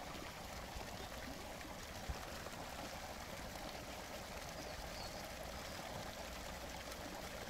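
Running water, a soft, steady rush like a stream.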